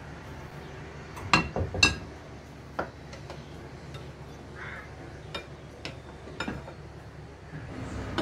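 Plastic spatula knocking against a glass bowl while stirring fruit into thick custard: two louder clinks a little over a second in, then a few lighter scattered taps.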